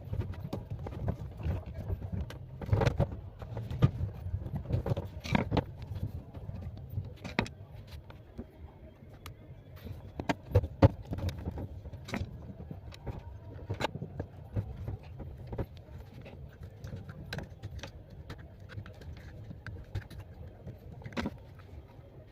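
Irregular clicks, knocks and rattles of hands working on an automatic washing machine's door and door lock, which is faulty and does not lock properly when the door is closed.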